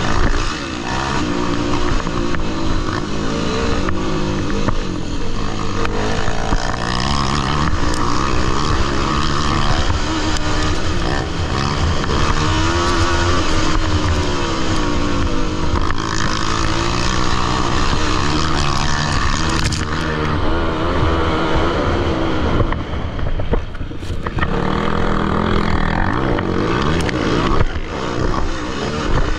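Several motocross bikes racing at once, their engines revving up and falling back over and over, with overlapping notes that rise and fall.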